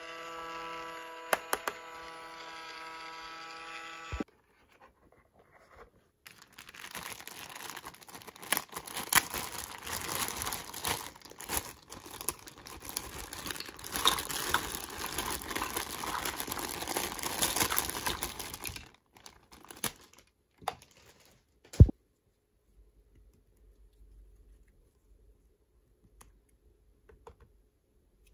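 Plastic packaging crinkling and tearing as a toy is unwrapped, with scattered clicks and a sharp snap about two thirds of the way in. Before it, a steady tone with overtones sounds for about the first four seconds and cuts off abruptly.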